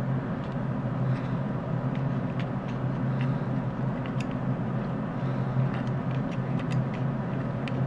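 Steady low hum with faint, scattered small clicks and ticks as diagonal cutters grip and twist a surface-mount electrolytic capacitor off a circuit board's pads.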